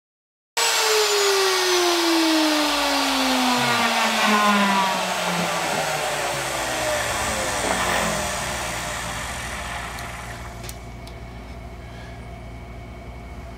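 A router motor spinning down after being switched off, its whine falling steadily in pitch and fading over about six seconds. A steady low hum carries on underneath.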